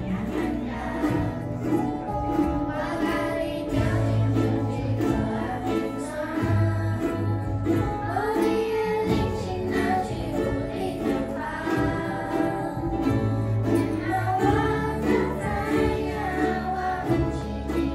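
Children's ukulele ensemble strumming a song, with children's voices singing the melody over a low bass line.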